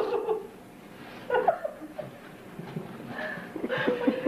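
People laughing in short bursts, with a brief snatch of talk near the end.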